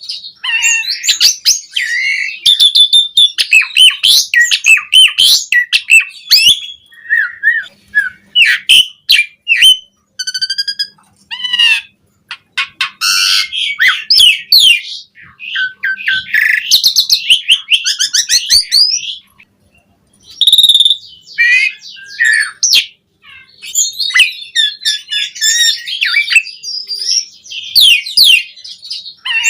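Javan pied starling (jalak suren) in full song: a loud, continuous, varied run of whistles, harsh chatter and rapid trills, packed with mimicked phrases (isian), breaking off briefly a few times.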